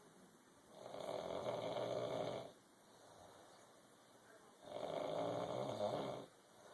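Snoring: two long snores of about two seconds each, about four seconds apart, with quiet between them.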